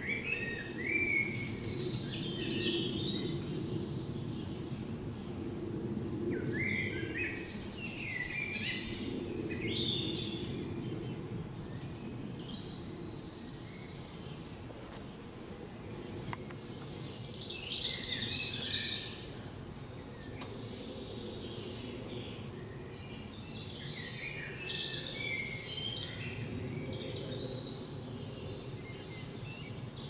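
Woodland songbirds singing, with phrases of song every few seconds, over a steady low background hum.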